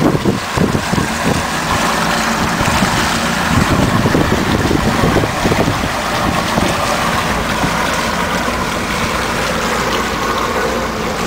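Outboard motor running steadily as the small boat moves along, with wind buffeting the microphone.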